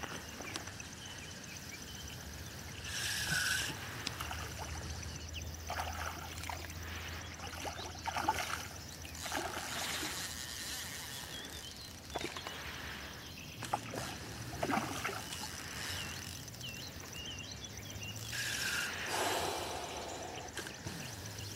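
Hooked grass carp splashing and thrashing at the water's surface while being played on a fishing line: irregular splashes and sloshing, several separate surges.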